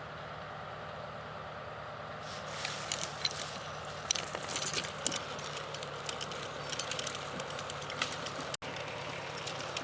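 John Deere 2750 tractor's diesel engine running steadily while the Uniforest 65H skidding winch pulls in its cable. From about two seconds in, scattered clicking and crackling rattles over the engine hum.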